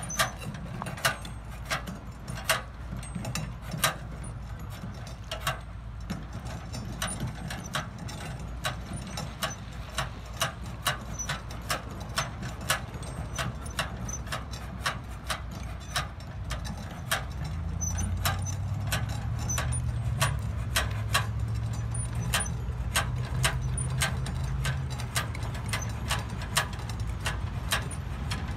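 Wheeled Crafco rubber melter cart being worked along the pavement: sharp metallic clicks and rattles, irregular at about two a second, over a steady low rumble. A steadier low hum joins about two-thirds of the way through.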